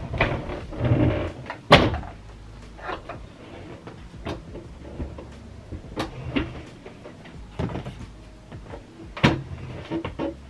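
A walking pad treadmill being tilted upright and shifted into place by hand: a string of knocks and clunks with rubbing and shuffling between them. The loudest knock comes about two seconds in, with sharp ones again near six and nine seconds.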